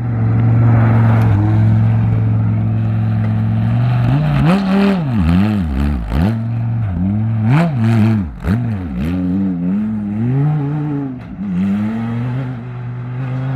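Rally-raid competition vehicle's engine, held at steady revs at first, then revved up and down rapidly and repeatedly from about four seconds in, with brief clatters, before settling to a steadier pitch near the end.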